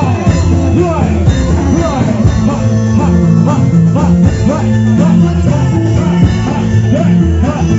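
Loud music: a busy drum rhythm over steady low bass notes.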